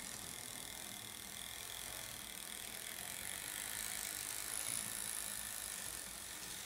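N-gauge model train, a TOMIX 583 series, running past on the track with a steady mechanical whir from its small wheels and motor, growing a little louder about four to five seconds in.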